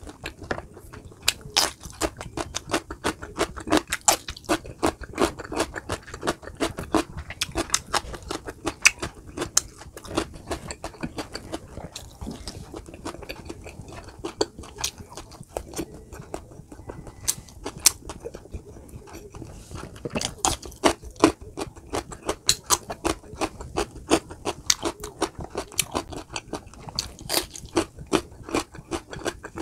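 Close-miked chewing and biting of roasted chicken (lechon manok), with many short crunchy clicks throughout.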